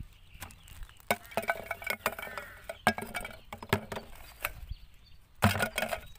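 Hands rummaging through a pile of plastic trash: plastic crinkling with a run of sharp clicks and knocks as items are moved, and a louder clatter about five and a half seconds in.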